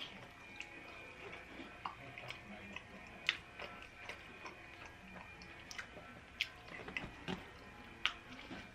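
A person chewing food close to the microphone, with irregular sharp, wet mouth clicks and smacks.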